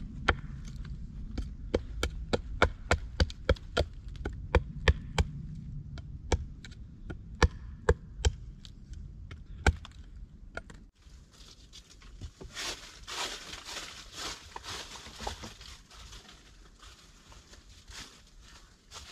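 Hatchet chopping a wooden stake: sharp wooden knocks about two to three a second. About eleven seconds in they stop and give way to a softer rustling noise.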